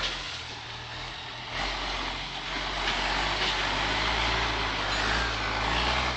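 International Harvester tractor's diesel engine running under load as the tractor drives across soft, muddy ground. The engine gets louder about a second and a half in.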